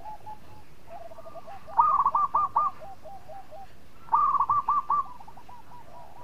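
Zebra dove (perkutut) singing its cooing song: two loud phrases of rapid repeated coos about two seconds apart, each trailing off into lower notes, with fainter trilling coos in between.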